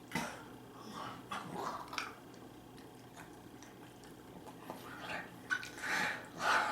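Close-miked eating sounds: wet chewing and slurping in irregular bursts, loudest near the end.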